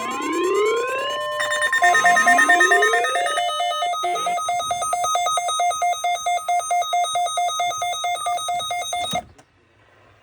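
NOAA Weather Radio test alert tones: a steady high warning alarm tone under repeated rising electronic whoops, then a rapidly pulsing beep tone. All of it cuts off suddenly about nine seconds in, leaving a faint hiss.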